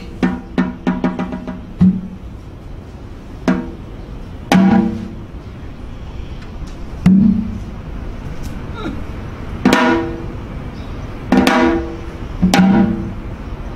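Janggu (Korean hourglass drum) accompaniment: a quick run of strokes in the first couple of seconds, then single strokes every one to three seconds, each with a short ringing tone.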